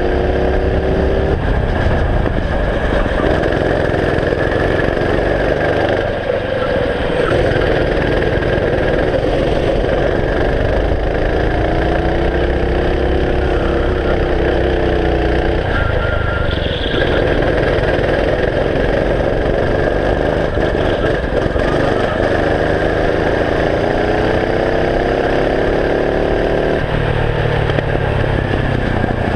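Go-kart engine heard from on board, its pitch climbing for several seconds as it accelerates along each straight and then dropping suddenly as the driver lifts off for the next corner. This happens several times over the lap.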